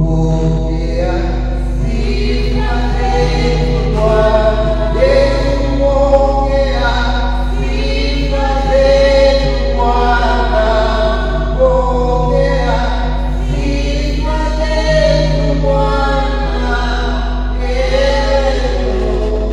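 A group of voices singing a slow worship song in long held notes, over a steady low hum.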